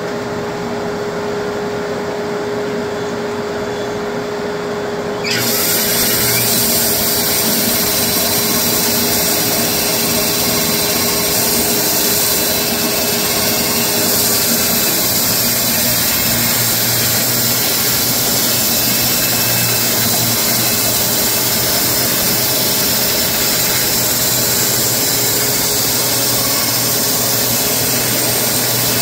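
WoodMizer LX250 band sawmill with an electric motor running with a steady hum; about five seconds in, a loud, even hiss of the band blade cutting through the horse chestnut log sets in suddenly and runs on steadily.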